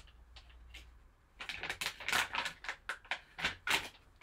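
Foil pack bag crinkling and crackling as it is handled, in a quick irregular run of crackles from about a second and a half in.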